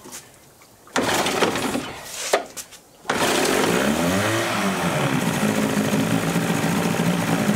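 Evinrude 35 hp two-cylinder two-stroke outboard pull-started with its recoil rope: it cranks unevenly for about two seconds and catches about three seconds in. It revs up and back down once, then settles into a steady idle, an engine the owner judges tired and beat.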